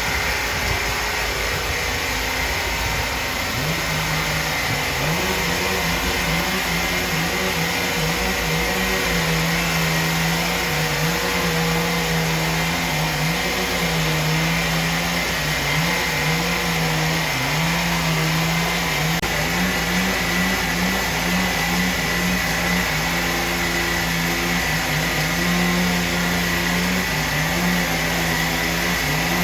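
A machine engine running steadily, its low hum stepping up and down in pitch as the load changes, over a constant high whine.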